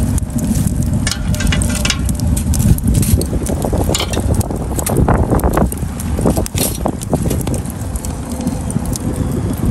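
Crackling and sharp clicks from chestnuts roasting in a metal steamer basket over a charcoal fire in a chiminea, under a heavy, steady rumble of wind on the microphone.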